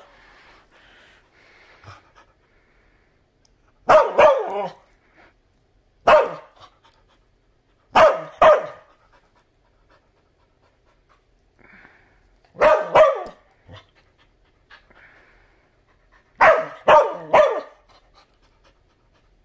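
Blue heeler-type dog barking in short bouts of one to three barks every few seconds, with soft panting in the gaps between bouts.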